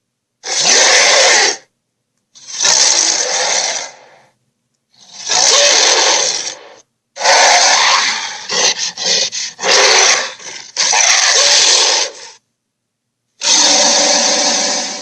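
A run of dinosaur roar sound effects for Sharptooth, the Tyrannosaurus of The Land Before Time. About seven separate loud roars, each a second or two long and cut off abruptly, with short silences between them; a stuttering stretch of short growls falls about two-thirds of the way through.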